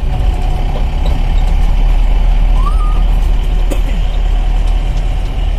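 Steady low rumble of a car's engine and tyres on the road, heard from inside the cabin of the moving car. A brief, faint high tone sounds about halfway through.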